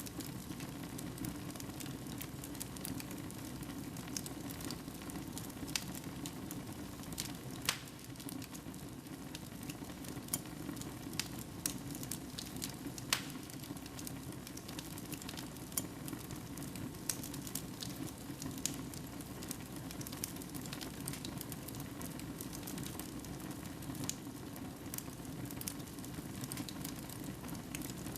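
Wood fire burning in a fireplace: a steady low flame noise with scattered sharp crackles and pops, a few of them louder than the rest.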